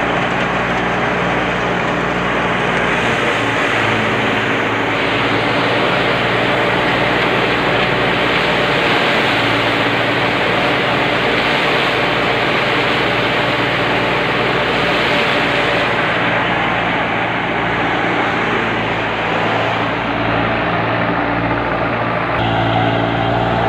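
Tractor-driven wheat thresher running steadily while wheat straw is fed into it: a dense, constant mechanical rush over the even note of the Belarus tractor's diesel engine driving it.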